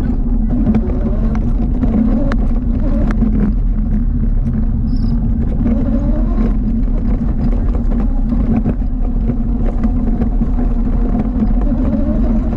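ATV engine running steadily with a constant low hum, with a few light clicks over it.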